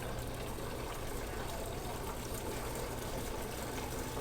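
Electrolux 10 kg washing machine filling with water through its inlet, a steady rush of water with a low hum underneath, as it fills toward its maximum water level.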